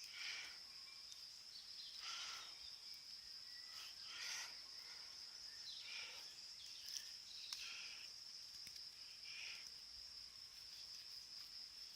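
Insects chirring steadily, a high constant drone, with soft scraping strokes about every two seconds from a Victorinox Cadet pocketknife blade shaving curls off a small stick.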